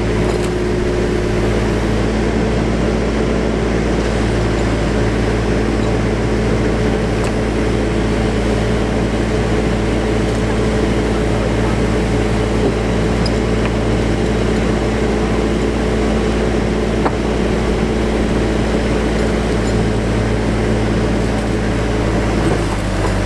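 Backhoe's diesel engine running steadily at an even speed.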